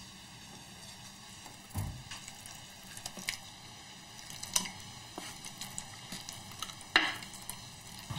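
Pork and chicken pieces sizzling as they are browned in hot oil in a terracotta cazuela, with a few sharp knocks and scrapes of a wooden spatula against the earthenware pan as the meat is pushed in and stirred.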